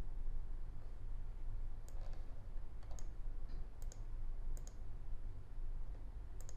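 A computer mouse clicking about five times, several as quick double clicks, as alarm-list column headers are clicked to re-sort the list, over a low steady hum.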